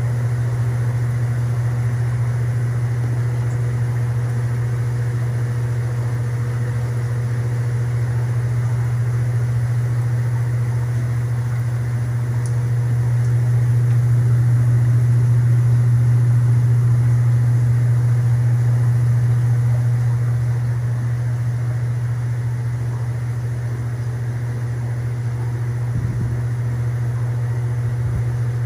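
Steady low hum of reef aquarium equipment, pumps and fans running, with a faint rushing noise over it. It grows somewhat louder for several seconds about halfway through.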